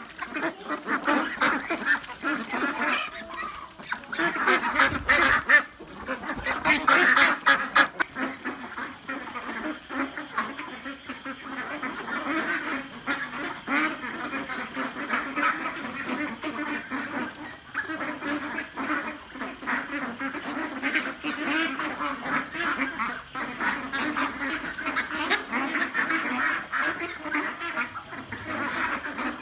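A flock of 40-day-old free-range ducks quacking continuously as they crowd round and eat feed, many calls overlapping into a dense chatter that is busiest about five to eight seconds in.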